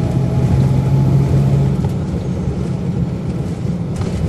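A 1999 NovaBus RTS transit bus's Cummins ISC inline-six diesel running under way, heard from inside the bus. A steady low engine note drops away about two seconds in, and the sound gets slightly quieter after that.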